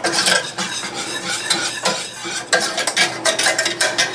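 A metal whisk beating in a pan, with rapid, irregular clicks and scrapes, as powdered soup mix is whisked into warm water.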